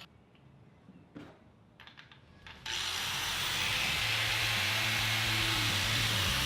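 A few faint handling clicks, then an angle grinder fitted with a homemade disc of three glued-together paper discs switches on about two and a half seconds in and runs steadily at speed.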